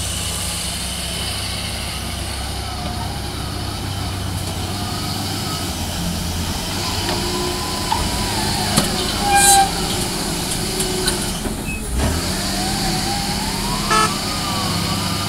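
Wheel loader's diesel engine running under load, with a whine that rises and falls in pitch as it digs into sand and lifts a full bucket. A few metal clanks and knocks from the bucket come about eight to ten seconds in.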